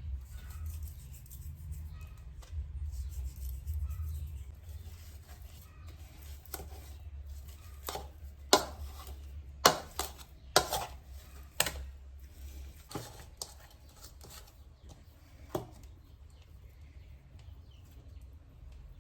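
A cluster of sharp knocks and taps from objects being handled, several in quick succession about halfway through and one more a few seconds later, over a low steady hum that fades out after the knocks.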